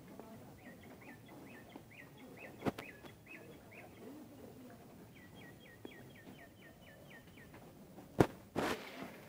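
A small bird chirping in two runs of short repeated notes, the second run faster than the first. A sharp click sounds a little under three seconds in, and a louder sharp click comes about eight seconds in.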